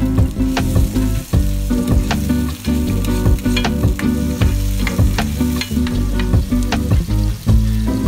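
Diced onion and tomato sizzling in oil in a nonstick frying pan, stirred with a spoon that scrapes and taps against the pan in many short clicks. Low background music plays underneath.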